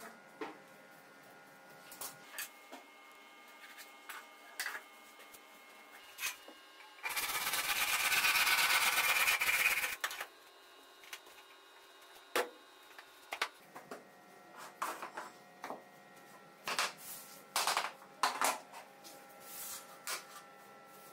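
Laminate floor planks being knocked into place with a hammer and tapping block: scattered sharp knocks and taps, in a quick cluster near the end, with a loud rasping rush lasting about three seconds partway through.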